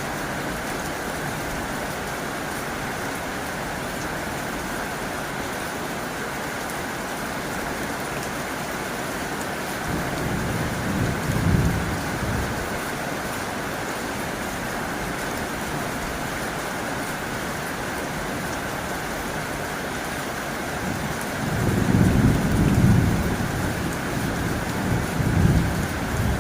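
Heavy rain drumming steadily on a tin roof. Low rolls of thunder swell up about ten seconds in and again from about twenty-one seconds, louder the second time.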